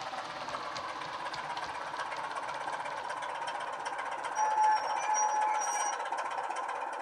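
Model Class 27 diesel locomotive's DCC sound decoder, Legomanbiffo sound file, playing the Sulzer diesel engine through a 27 mm bass-enhanced speaker under the roof fan, running steadily as the locomotive slows. About four and a half seconds in, a high brake squeal sounds twice briefly as it comes to a stand.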